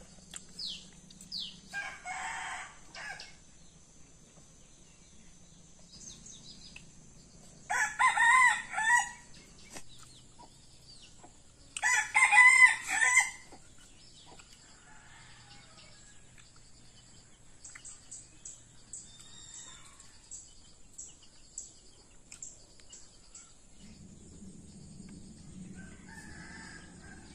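A rooster crowing loudly twice, each crow about a second and a half long, with a fainter call before them and small birds chirping.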